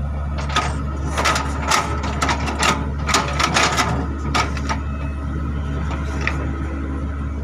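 Excavator diesel engine running steadily, with a quick series of sharp mechanical clicks and knocks from the working machine over it.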